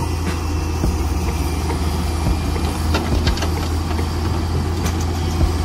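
Vehicle engine idling steadily, a low even rumble, with a few faint clicks about three seconds in.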